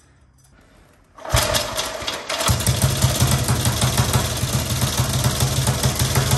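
The single-cylinder four-stroke side-valve engine of a 1930 Automoto motorcycle firing up about a second in, then settling into a rapid, even idle.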